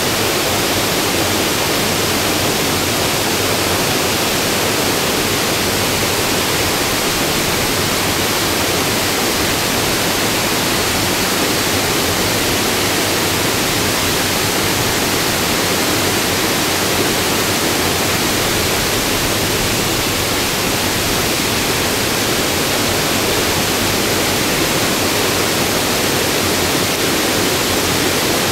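Steady rushing of Havasu Falls and the cascades below it: a constant, loud wash of falling water with no breaks.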